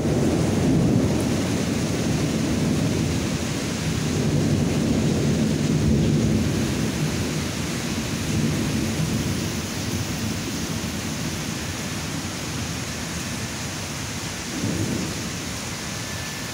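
Long rolling rumble of thunder, strongest in the first half and slowly dying away, with a shorter, weaker rumble near the end. A steady hiss of rain falls throughout.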